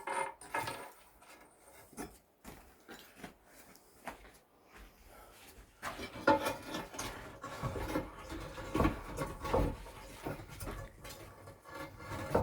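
Building work in a small room: scattered knocks and scraping of bricks and rubble being handled, which turn into busier clatter about halfway through.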